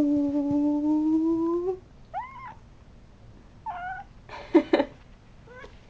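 A domestic cat gives one long, level yowl of about two seconds, then several short meows.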